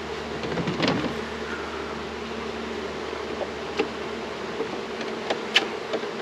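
Honey bees buzzing in a steady hum around an open hive as honey supers are pulled, with a few sharp clicks and knocks.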